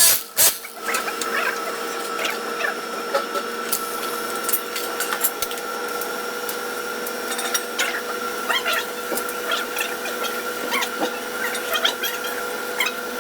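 Welding on stainless steel sanitary pipe: two sharp bursts right at the start, then a steady hiss with a constant whine and small scattered crackles.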